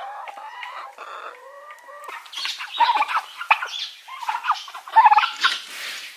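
Chickens and turkeys clucking and calling, a busy run of short calls from about two seconds in.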